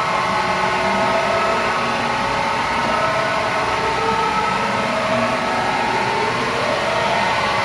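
FEMCO Kafo VMC-21100 CNC vertical machining center running after being set going, giving a steady mechanical whine made of several tones over a hum.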